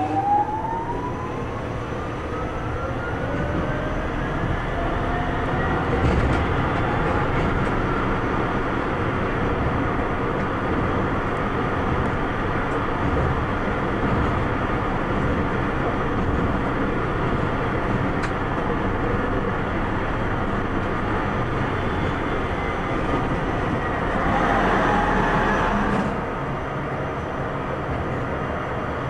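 Tram running on its rails, heard from the driver's cab: the motor whine rises in pitch over the first five or six seconds as the tram picks up speed, then holds over a steady rumble of wheels on track. About 24 seconds in there is a louder, rougher stretch lasting about two seconds.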